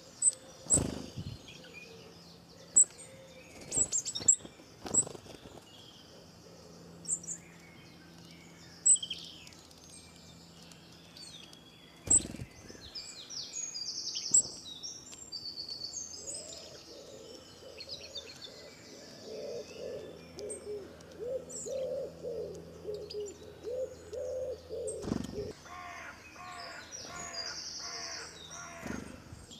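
Small birds chirping and tweeting, with runs of repeated lower notes in the second half. A few sharp knocks of a wooden spoon against a stainless steel pot stand out, over a faint steady low hum.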